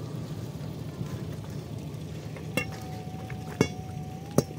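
Metal tent-frame poles knocking as they are handled: three sharp clanks in the second half, over a steady hiss.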